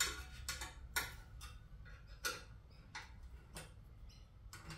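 Allen key clicking on the bolts of an exhaust cut-out cap on a motorcycle header as it is turned and repositioned: a dozen or so light metal ticks at an uneven pace.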